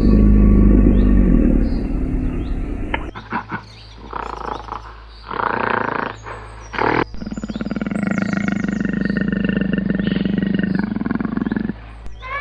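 A large animal roaring in low, drawn-out calls, with abrupt breaks between sections.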